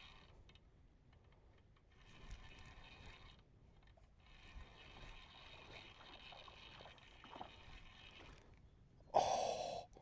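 Fishing reel being cranked in spells while fighting a hooked trout: a steady whirring with short pauses. Near the end comes a short, loud burst of breathy noise.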